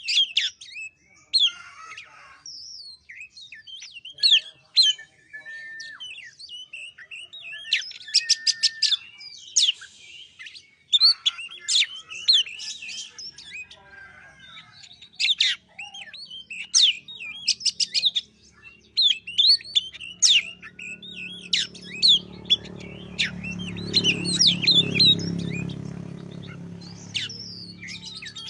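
Oriental magpie-robin (kacer) singing a fast, varied song of loud whistles, sliding notes and rapid trills, the kind of lure song played to prompt a reluctant kacer to sing. A low droning hum rises beneath it in the second half and is loudest near the end.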